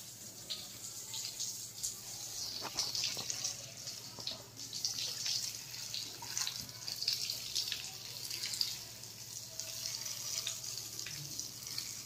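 Water from a hose spraying onto a Rottweiler's wet coat and splattering on a concrete floor: a steady hiss broken by irregular splashes.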